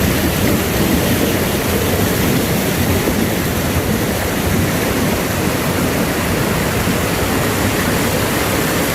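Waterfall rushing steadily: a continuous even roar of falling water with no breaks.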